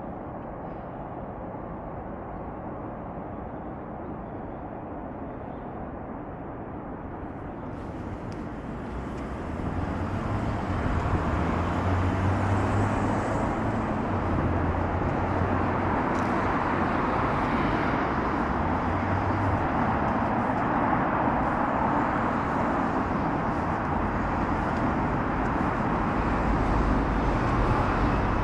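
City road traffic: a steady hum of passing cars and trucks that grows louder about ten seconds in.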